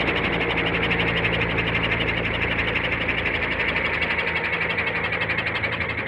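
Electric Roban Airwolf 800-size scale RC helicopter in flight: a fast, even chop of the main rotor blades over a steady motor hum, slowly fading as the model banks away.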